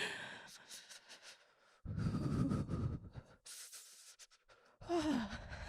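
A woman's close-miked breathing: a breathy exhale about two seconds in, then a soft voiced sigh that falls in pitch near the end.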